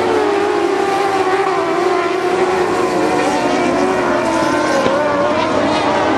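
Several dwarf race cars running laps on a dirt oval, their motorcycle engines revving hard, with the pitches of the different cars wavering up and down over each other.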